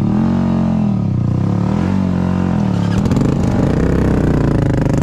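Dirt bike engine revving in swells on a rocky climb: the pitch rises and falls three times in about three seconds as the throttle is worked, then holds steadier and a little higher.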